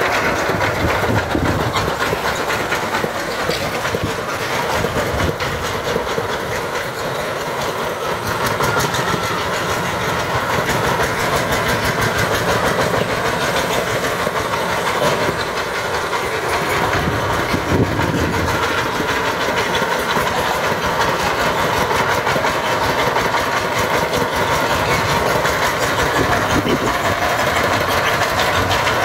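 Single-cylinder diesel engine of a homemade farm truck (mobil grandong) running steadily with a fast, even knock as the loaded truck drives.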